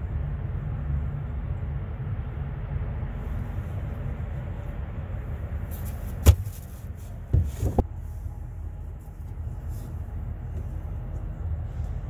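A steady low rumble, with a sharp knock about six seconds in and a few quick knocks and clatters at about seven and a half seconds, as gear and plastic containers are moved about in a pickup truck's camper-shell bed.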